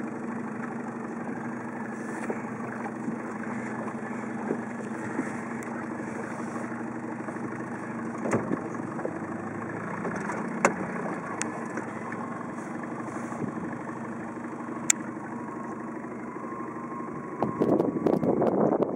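Motorboat engine running steadily at low speed, with a few sharp knocks. Near the end a louder rushing noise comes in.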